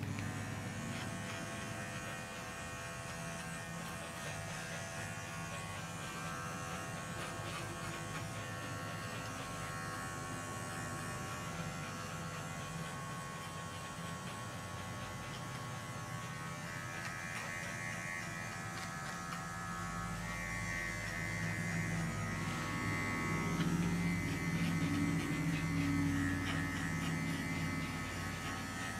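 Wahl Bravura cordless dog clippers running with a steady electric buzz as they clip a dog's coat around the tail and hindquarters. The buzz grows louder about two-thirds of the way through.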